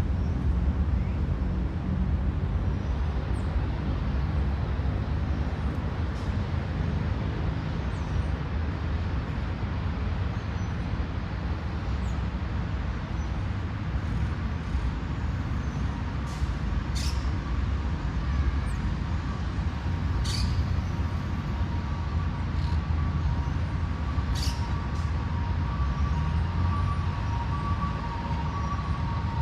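Steady low rumble of distant city road traffic, with a few short high bird chirps scattered through it. A faint steady tone comes in near the end.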